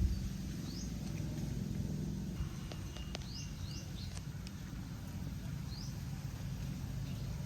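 Outdoor ambience: a steady low rumble with a few short, rising bird chirps scattered through it, and a few faint clicks around the middle.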